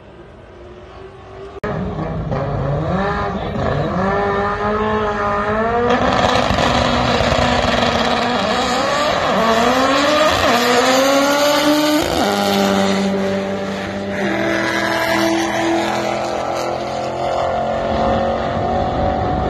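Subaru STI drag car's engine accelerating hard down the strip, its pitch rising in steps through several upshifts. Near the end the engine holds a steadier pitch.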